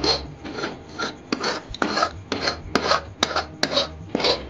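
Steel ladle scraping the bottom of a kadhai in repeated rasping strokes, two or three a second, working loose fried eggs that have stuck to the pan.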